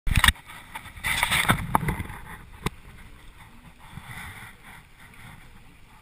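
Mountain bike riding on tarmac, heard with wind on the microphone: a steady rushing noise with scattered sharp clicks and knocks from the bike. It is loudest in the first two seconds.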